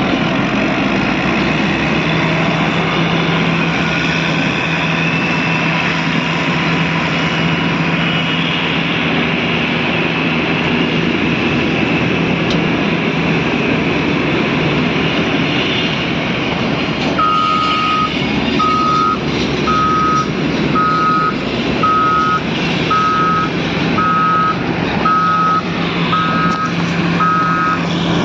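Caterpillar 120 motor grader's diesel engine running steadily under work. Past the halfway point a reversing alarm starts beeping about once a second.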